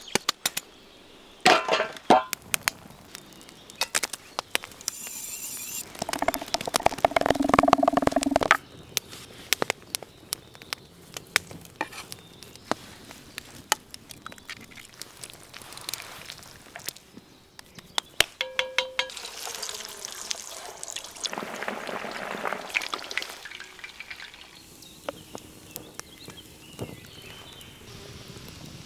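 Outdoor cooking sounds: liquid poured for about two and a half seconds, starting some six seconds in, amid scattered clicks, clinks and taps from handling utensils and food, with a hissing stretch later on.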